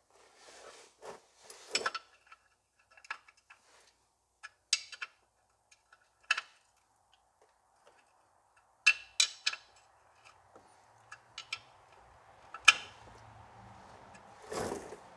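Scattered metallic clinks, clanks and knocks of hand tools and steel parts being handled, with a few sharper strikes in the second half.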